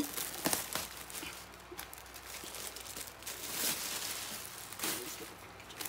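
Plastic bag and plastic packing crinkling and rustling in short, scattered bouts as a wrapped item is handled and lifted out of a cardboard box.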